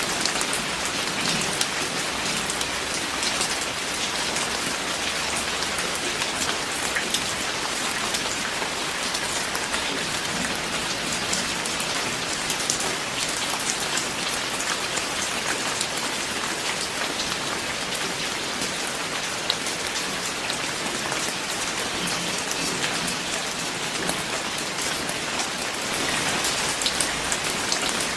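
Steady rain falling, with close drops striking a surface as fine ticks over the even hiss; it swells slightly louder near the end.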